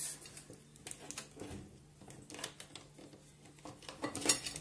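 Handling sounds: light clicks and rustling as a glass baking dish heaped with shelled walnuts is shifted into place, with a louder brushing noise near the end.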